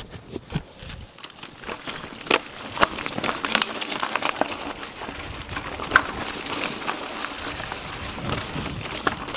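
Mountain bike rolling fast down a dirt forest trail: tyres crunching over earth, leaves and twigs, with irregular clicks and knocks from the bike over bumps.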